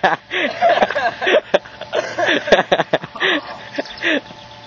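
Several young voices shouting and exclaiming over one another, excited and indistinct, with a couple of sharp clicks; the voices drop away in the last second.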